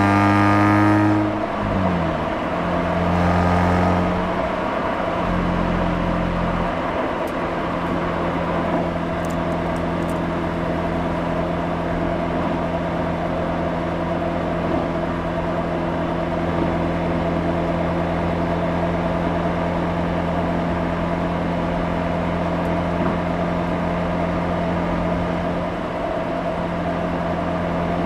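Mazda RX-8's two-rotor Renesis rotary engine heard through its exhaust. The engine note drops in pitch in the first couple of seconds, shifts again a few seconds later, then runs at a steady pitch.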